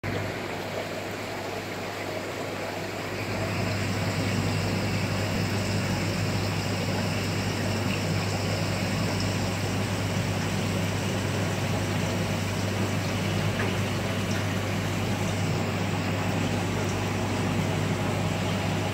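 Steady low hum with a rushing noise behind it, growing louder about three seconds in.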